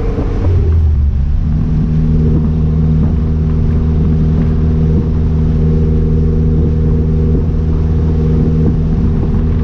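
Chrysler Conquest's turbocharged G54B four-cylinder running under way. Its pitch climbs a little about a second in, then holds steady.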